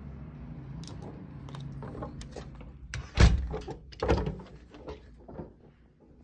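Balcony door being handled and shut: a few clicks and rattles from the handle, then a solid thump about three seconds in and a second knock a second later. Low steady outdoor hum underlies the start.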